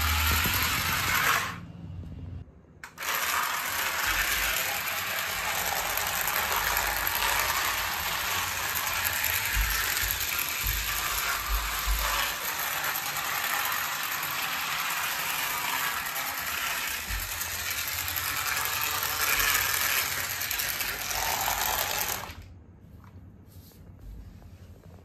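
Motorized toy train locomotive running on plastic track, a steady gear whirr and rattle with wheels clattering over the track joints; it breaks briefly near the start and drops away suddenly about three seconds before the end.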